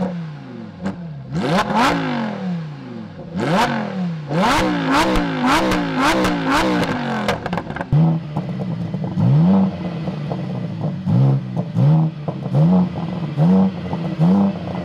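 Lamborghini Huracán Performante's 5.2-litre V10 revved again and again, pitch shooting up and sliding back down, with crackles and pops from the exhaust. About eight seconds in, it gives way to a BMW M3 CS's twin-turbo straight-six on its stock exhaust, running with short quick throttle blips about once a second, crackling between them.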